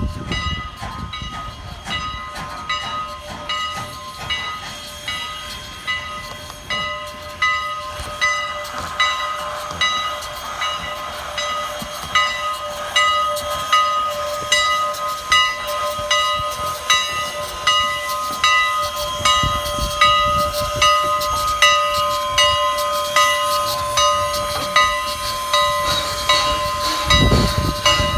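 A train hauled by the steam locomotive ex CN 89 running past, with a steady high-pitched ringing held throughout and an even beat about once a second that grows a little louder and quicker toward the end, over some steam hiss.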